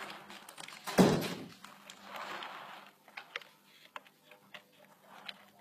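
A loud thud about a second in, followed by a brief rustle and a few scattered small clicks over a faint steady hum.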